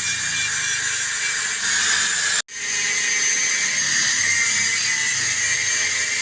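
Machine-shop power tool running steadily with a high whine, cutting out for an instant about two and a half seconds in.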